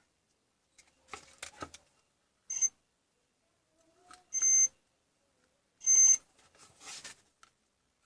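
Three short electronic beeps, each a steady high tone, the later two a little longer, with clicks and handling noise before and between them.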